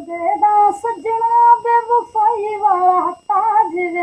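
A woman singing a Punjabi folk-style song solo without accompaniment, holding long notes with wavering ornaments.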